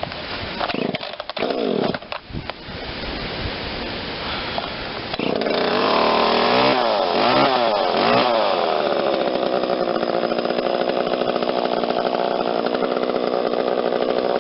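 Echo CS-3450 two-stroke chainsaw pull-started on its newly repaired recoil starter, the sign that the new starter drum now engages the flywheel. About five seconds in it catches and runs, is revved up and down a few times, then settles into a steady run.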